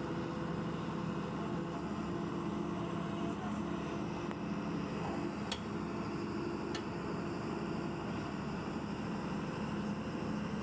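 Excavator diesel engine running steadily, a constant low hum.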